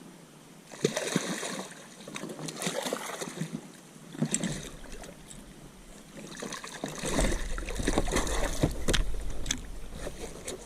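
Water splashing and sloshing against a small inflatable boat, with knocks and handling noises in several bouts; a low rumble joins in from about seven seconds in.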